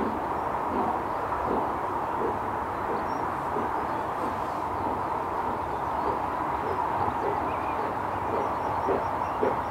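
Pigeons cooing in repeated low hooting notes over a steady background hum; near the end the notes come about twice a second.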